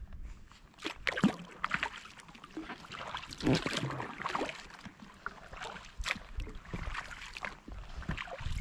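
Kayak paddle blades dipping and pulling through calm water, with irregular splashes and drips running off the blades; the loudest splash comes about three and a half seconds in.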